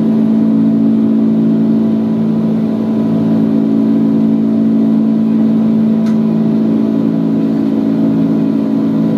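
Steady drone of a Boeing 747-200 heard inside the cabin while climbing after takeoff: engine and airflow noise with several steady low hum tones.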